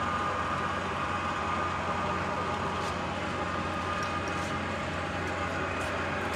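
Graziano SAG 210 centre lathe running with its spindle turning at about 780 rpm: a steady, even hum with a high tone, free of knocking or grinding, the sound of a spindle and headstock in good condition.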